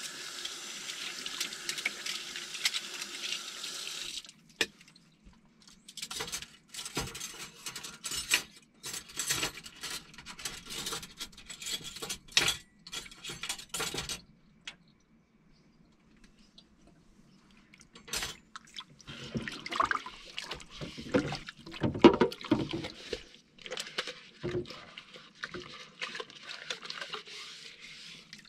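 Kitchen tap running into the sink, with metal cutlery and dishes clattering as they are washed and set down. The water stops after about four seconds, then runs again for the last third, with more clinks and clatters.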